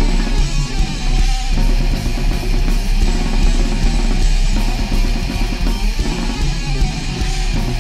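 Rock music with electric guitar and drums, played steadily.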